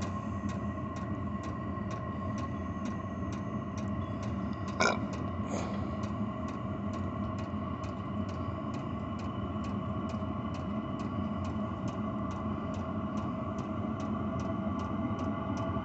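Chinese diesel air heater running as it comes up to speed after lighting: its fuel dosing pump ticks steadily, about three times a second, over the steady hum of the combustion fan and burner, with one louder click about five seconds in. The exhaust runs through a straight pipe with no muffler.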